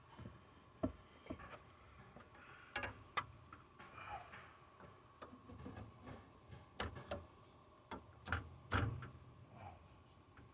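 Scattered light clicks and knocks of hands working with pipe fittings and tools, irregular and some seconds apart, the sharpest about a second in and near the end.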